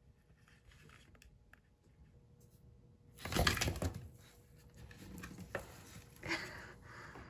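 Scuffling and knocks on a wooden tabletop as a Sudan plated lizard scrambles and is grabbed by hand. The loudest burst comes about three and a half seconds in, with softer rustles and two light knocks after.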